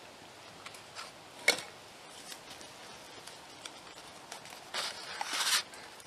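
Food packaging and dishes being handled on a wooden table: a sharp knock about a second and a half in, small ticks, then a louder rustling near the end that grows and stops.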